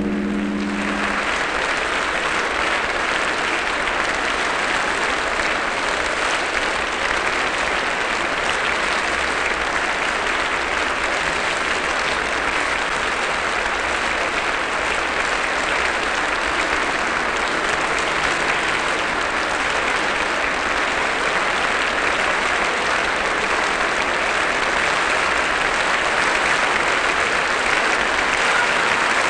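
Theatre audience applauding steadily, the clapping growing a little louder near the end. The last of a deep, gong-like chime dies away in the first second.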